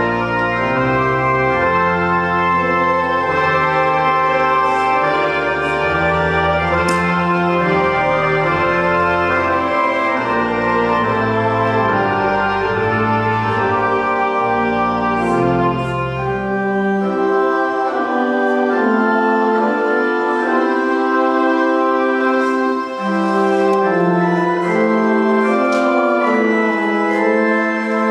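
Church organ playing a slow anthem in sustained chords; the low pedal bass drops out a little past halfway, leaving the higher parts.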